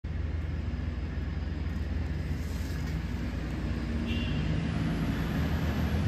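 Steady low rumble of city traffic, with a faint engine hum and a brief high chirp about four seconds in.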